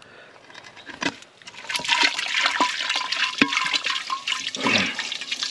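A spoon stirring a thick mayonnaise dressing: wet squelching and sloshing with light clicks. It grows louder about a second and a half in.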